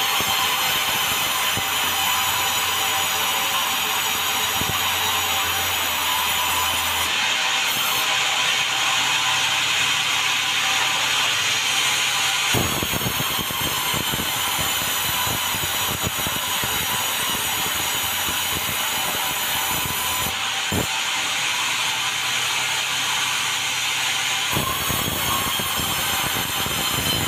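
Sawmill running and cutting a red meranti log into boards: a loud, steady whine and rasp with a few held tones. The sound turns coarser about halfway through and again near the end.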